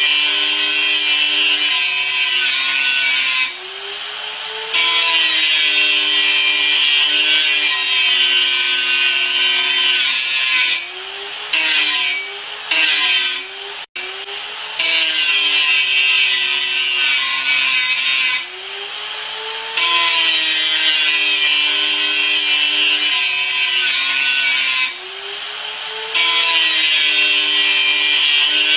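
Angle grinder disc grinding with a loud hissing scrape over its motor tone, the motor pitch sagging under load. About five times the disc is lifted off for a second or so: the scraping stops and the motor speeds back up before it bites again.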